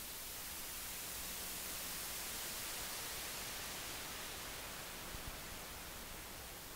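Steady hiss of microphone static with no speech coming through, the sign of a wireless microphone dropping out as its batteries fail. Two faint thumps come a little after five seconds in.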